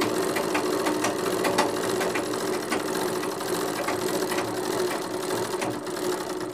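RANEW three-thread overlock machine running steadily, sewing an overlocked seam along the edge of a cotton fabric strip while its knife trims the edge: a continuous mechanical hum with regular clicks.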